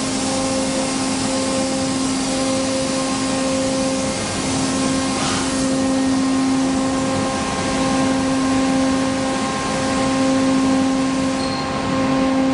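HOMAG CNC router running, a steady mechanical drone with a constant hum of several tones, and a short swell of hiss about halfway through.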